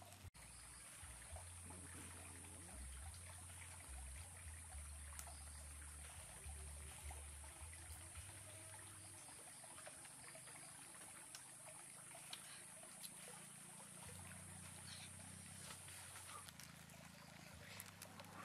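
Near silence: faint, scattered crackling of a small campfire roasting fish on sticks, under a steady high-pitched hiss that stops near the end.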